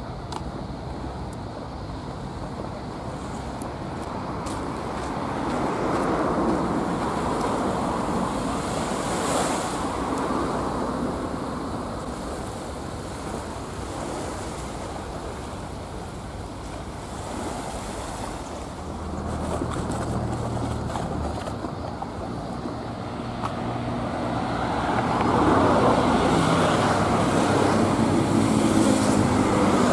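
Seaside ambience: waves washing in and wind on the microphone, swelling louder twice. A vehicle's engine hum passes about two-thirds of the way through.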